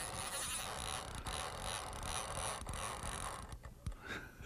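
Fishing reel's drag buzzing as a hooked bass pulls line off against it, stopping about three and a half seconds in.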